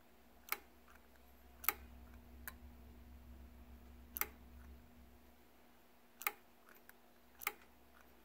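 Light, sharp clicks, about six at irregular spacing, from the throttle linkage of a PD carburetor being snapped open and shut by hand to work the accelerator pump.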